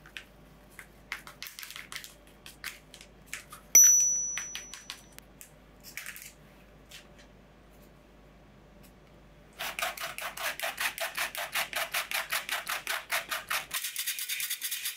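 Metal squeeze-handle flour sifter being worked over a glass bowl: a fast, even run of rasping strokes, several a second, as the handle is squeezed and the agitator scrapes flour through the mesh, starting a little past the halfway mark. Before it come scattered light clicks and one sharp tap with a brief high ring about four seconds in.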